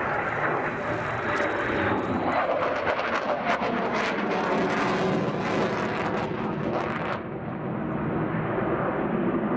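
Jet noise from a USAF F-35A Lightning II's single Pratt & Whitney F135 turbofan as the fighter banks overhead. The noise is loud and rough, with a crackle through the middle seconds, and the hiss above it drops away sharply about seven seconds in.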